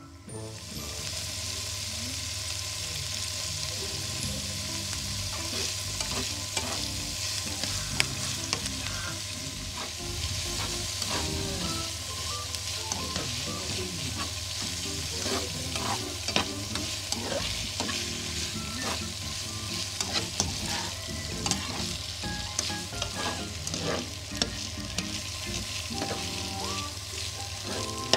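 Bitter gourd and shrimp sizzling in a hot pan while being stir-fried, with the spatula scraping and clicking against the pan. The sizzle starts about half a second in and then holds steady.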